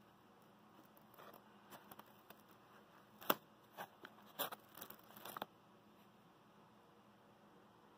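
Handling noise: a scattering of light clicks and scrapes as a hand touches and steadies a small Stirling engine in a foam box. The sharpest click comes about three seconds in, with a cluster of scratchy ones a second or two later.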